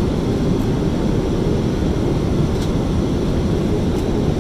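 Steady rushing noise of a Boeing 777-300ER's GE90 engines and airflow heard inside the passenger cabin, heaviest in the low range and unchanging.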